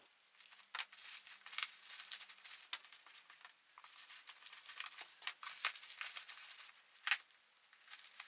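Plastic shipping bag crinkling and tearing as it is pulled open by hand, with irregular crackles and a couple of sharper snaps.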